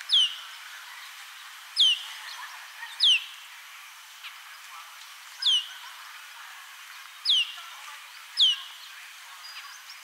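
Asian glossy starling (Andaman subspecies) giving sharp, high whistled calls that drop quickly in pitch, six of them a second or two apart, over a steady hiss.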